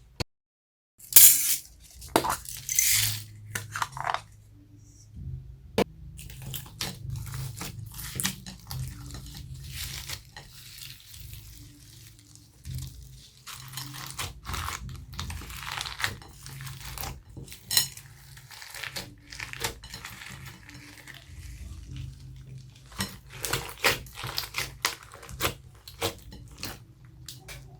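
Homemade slime being squished, stretched and folded by hand, giving irregular crackles, clicks and pops, over a faint steady low hum.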